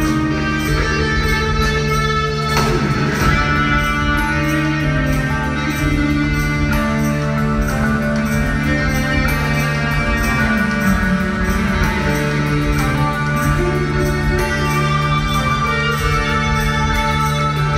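Progressive metal band playing live: sustained electric guitar and keyboard notes over drums, with a steady fast beat.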